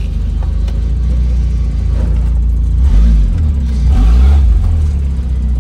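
Turbocharged mini truck's engine running hard, revving up and dropping back twice in the second half.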